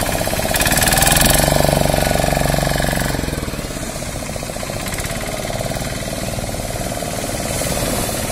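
A fishing boat's engine running with a fast, even knocking beat as the boat heads out through the surf, louder for the first few seconds and then steadier, over the wash of breaking waves.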